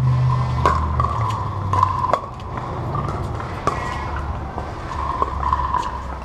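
Pickleball rally: about half a dozen sharp hollow pocks of paddles striking a plastic Dura 40 outdoor ball, irregularly spaced, over a steady low rumble.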